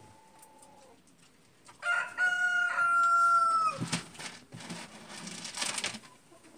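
A rooster crows once, a call of about two seconds held at a steady pitch that drops away at the end. Quieter rustling and scuffling follows.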